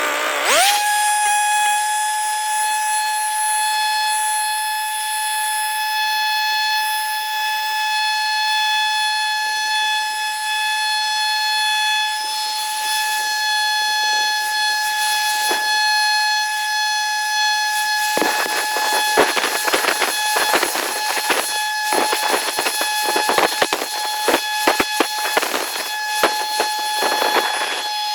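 An electric power tool's motor spins up about half a second in to a steady high whine and runs on without changing pitch. From about 18 seconds in, rapid irregular clicks and knocks sound over it.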